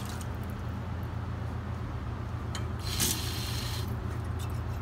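Steady low machine hum, with a short hiss of water spraying from a sink hose about three seconds in as the last sand fines are rinsed out of a glass pycnometer flask.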